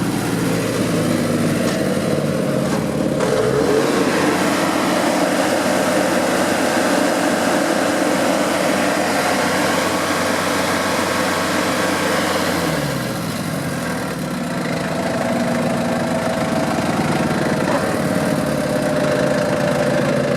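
Cummins 3.3-litre diesel engine of a Vermeer BC1000XL wood chipper running, throttled up from idle to high speed about three seconds in, held there, then brought back down to idle about thirteen seconds in.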